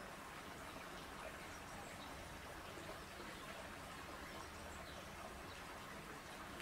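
Faint steady hiss of moving water in an outdoor polar bear pool, with small scattered ticks and chirps over it.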